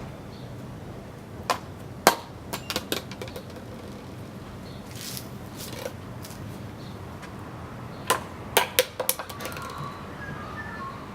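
Sharp knocks and taps in two quick clusters, one about a second and a half in and another about eight seconds in, over a steady low hiss.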